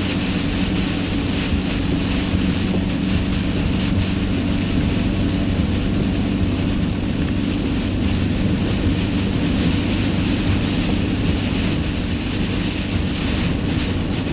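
Vehicle travelling on a motorway in rain and strong wind: steady rushing noise of tyres on the wet road, rain and wind, over a low steady hum.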